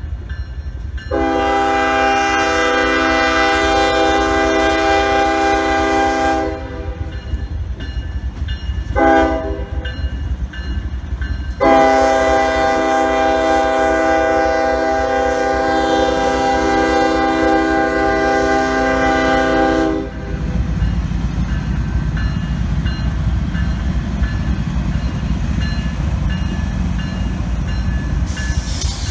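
Freight train's multi-chime air horn sounding the grade-crossing signal: a long blast, a short one, then a long one held about eight seconds as the locomotive reaches the crossing. Then the steady low rumble of the diesel locomotives passing close by.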